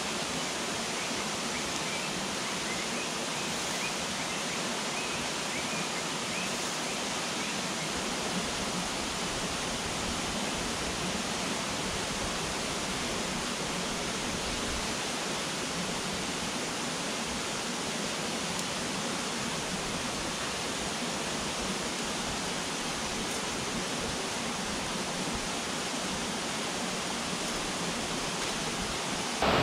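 River water rushing steadily, an unbroken even hiss.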